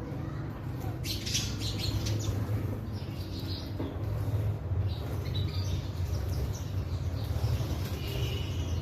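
Sparrows chirping in short, scattered bursts of quick high notes, over a steady low hum.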